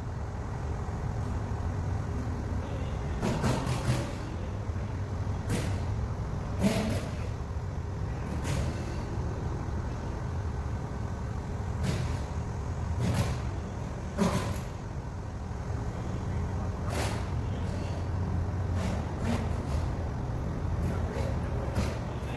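Heavy diesel engine of a crane running steadily with a low rumble, with short sharp noises every second or two.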